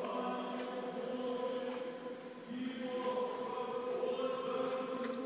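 A church choir singing chant in long held notes, easing off about two seconds in and then coming back in.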